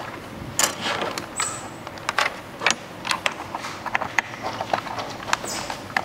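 Irregular sharp plastic clicks and taps from a mechanical keyboard being assembled, several a second.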